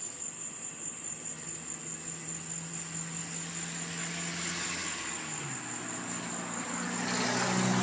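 Crickets trilling steadily in a high, unbroken tone, with a vehicle approaching, its noise swelling louder over the last few seconds.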